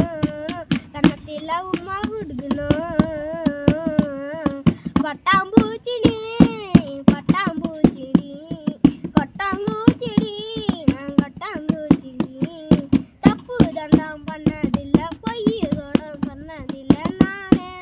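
A child singing a Tamil folk-style song, with sharp hand-beaten taps keeping a steady rhythm under the voice; the taps are the loudest sounds.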